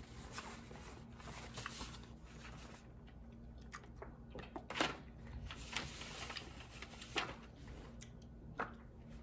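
Faint chewing of dim sum chicken feet, soft and wet, with a few short clicks as teeth work the meat off the small bones.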